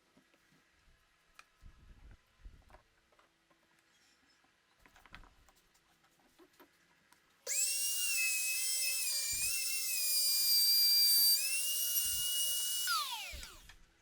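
A small high-speed electric power tool starts abruptly about halfway in and runs with a high whine that wavers in pitch, then rises and gets louder. Near the end it is switched off and winds down, its pitch falling away. Before it starts there are only a few faint handling knocks.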